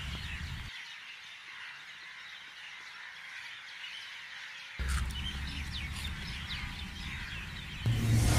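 Outdoor ambience of birds chirping in the background, with a low rumble that cuts out about a second in and comes back about five seconds in. Near the end a loud dramatic music cue begins.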